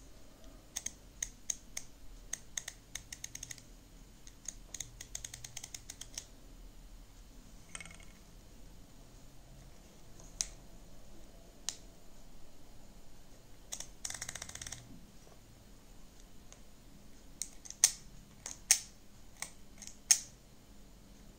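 Pentax-M 50mm f/1.4 manual lens being handled: runs of small rapid clicks from its aperture ring being turned through its click stops, a brief rustle, then a few louder sharp clicks near the end.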